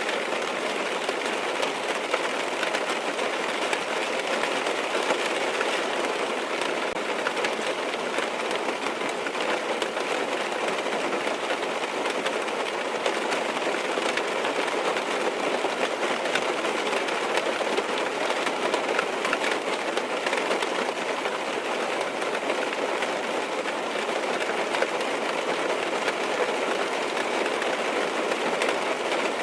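Steady rain falling on a car's roof and windows, heard from inside the car: a dense, even patter of countless small drop impacts with no let-up.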